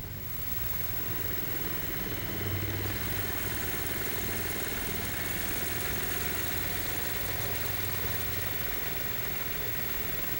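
Golf cart electric motor spinning a Geo Metro automatic transmission with no load, a steady whirring with some vibration. It grows louder over the first couple of seconds, then holds steady.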